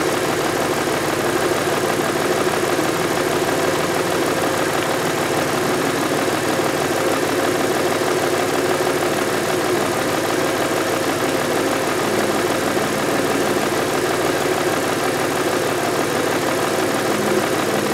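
2000 Audi A6's 2.8-litre V6 engine running steadily, with an even, unchanging engine note.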